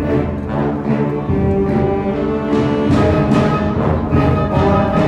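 High school symphonic band playing: held chords from clarinets, saxophones and tuba over string bass, with repeated percussion strokes.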